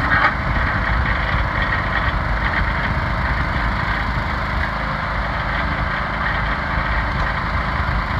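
Small gasoline engine of a 40-ton hydraulic log splitter running steadily.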